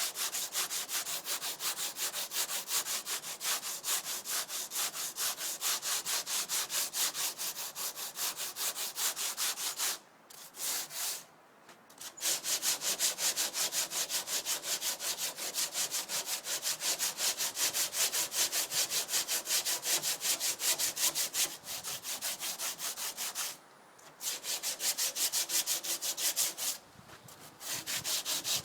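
Sandpaper scraping over a fibreglass dodger in fast, even back-and-forth strokes, stopping briefly three times.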